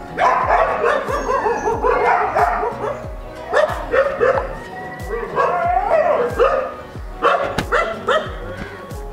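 Kombai dogs yelping and barking over and over in short arching calls, over background music with a steady beat.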